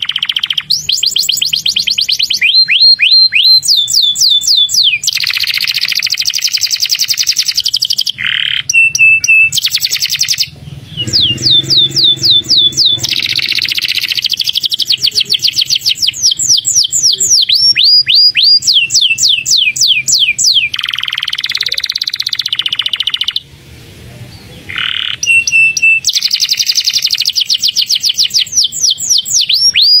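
Domestic canary singing a long, loud song. Fast trills of steeply falling notes alternate with dense buzzy rolls and short held whistles, with two brief breaks about ten and twenty-three seconds in.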